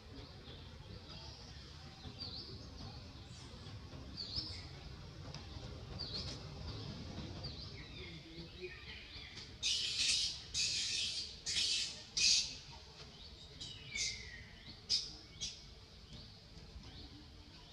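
High-pitched animal calls: short chirps and squeaks, then a run of four loud, harsh shrieks about ten to twelve seconds in, followed by a couple of falling calls and a few more squeaks.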